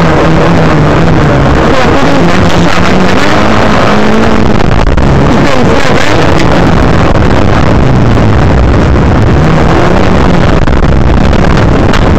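Kia Picanto rally car's engine heard from inside the cabin, loud throughout, its pitch rising and falling repeatedly as the driver accelerates and lifts through the stage, over steady road and tyre noise.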